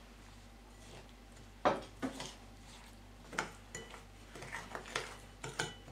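Kitchen pot and utensils knocking and clinking against a mixing bowl as melted margarine is poured from the pot into the dough: one sharp knock about one and a half seconds in, then a run of lighter clinks and scrapes, a couple of them briefly ringing.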